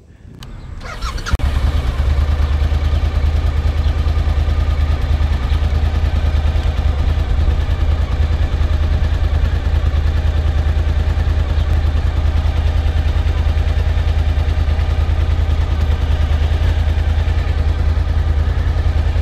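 Suzuki V-Strom motorcycle engine idling steadily. It comes in about a second in and then holds an even, low-pitched idle.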